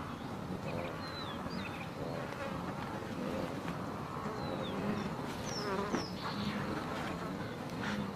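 Insects buzzing in a steady hum, with a few short, high, falling chirps scattered through it.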